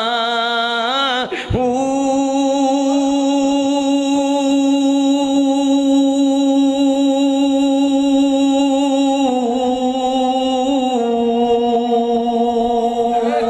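A man chanting Punjabi Sufi verse: a short sung phrase, then one long held note of about eleven seconds that steps slightly lower twice near the end.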